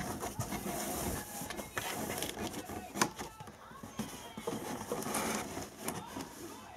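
A Norwegian Forest Cat moving about inside a cardboard box: paws and claws scuffling and scraping on the cardboard, with a few sharp knocks, the loudest at the start and about three seconds in.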